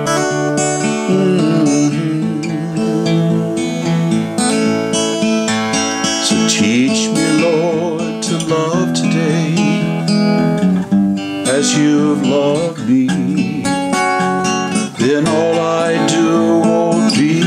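A man singing with his own strummed acoustic guitar accompaniment, his voice held in long notes with vibrato.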